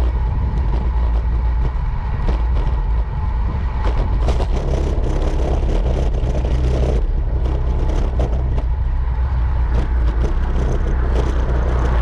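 Riding noise picked up by a bicycle-mounted camera: a steady low rumble of wind and road, with scattered small clicks and rattles as the bike rolls over rough pavement.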